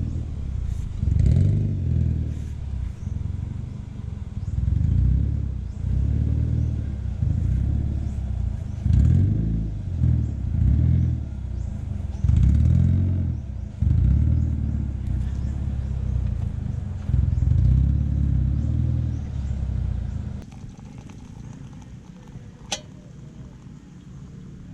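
Vehicle engine running, its low rumble rising and falling in loudness, then dropping away about 20 seconds in; a single sharp click near the end.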